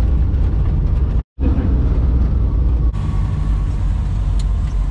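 Engine and road rumble inside a moving vehicle's cabin, loud and steady, broken by a brief gap of silence a little over a second in.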